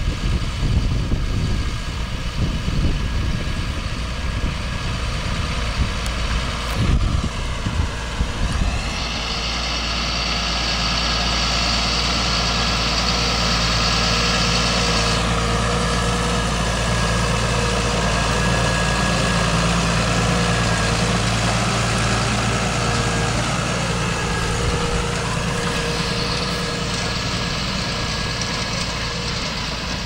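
Claas tractor's diesel engine working under load while ploughing. The sound rumbles unevenly for the first nine seconds or so, then settles into a steadier drone with a high hiss.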